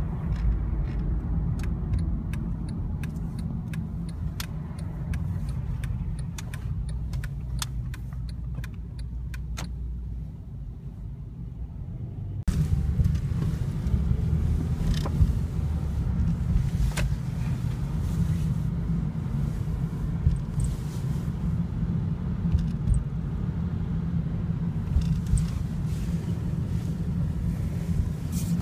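Steady low road rumble of a moving car heard from inside the cabin, with scattered short clicks through the first half. About twelve seconds in, the rumble suddenly gets louder and fuller.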